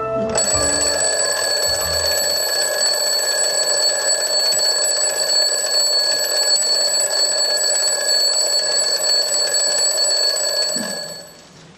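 Alarm clock bell ringing loudly and continuously, a wake-up signal, then cutting off near the end.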